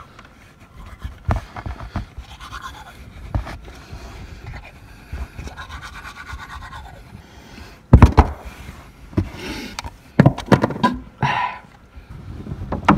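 Manual toothbrush scrubbing teeth, a wet, scratchy brushing noise. In the second half it is broken by several sharp knocks and bumps from handling things, the loudest about two-thirds of the way through.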